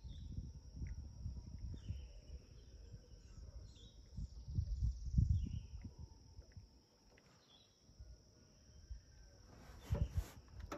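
Outdoor swamp ambience: a steady high insect drone with small birds giving short falling chirps about once a second, over an uneven low rumble. A few sharp knocks come near the end.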